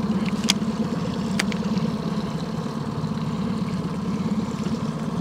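Boat's outboard motor running steadily at trolling speed, a low even hum with a fast pulse. Two sharp clicks come about half a second and a second and a half in.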